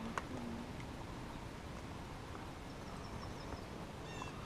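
Quiet open-air ambience from a small fishing boat on a lake: a steady low hiss, with a brief bit of voice in the first half second and a few faint high chirps about three seconds in.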